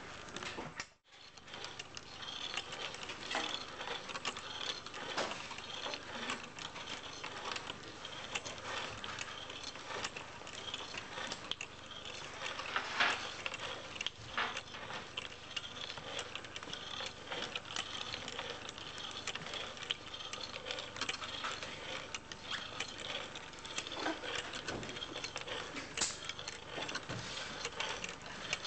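A handmade kinetic object of wood, wire and cork, clicking and rattling continuously and irregularly as its mechanism moves. The sound drops out briefly about a second in.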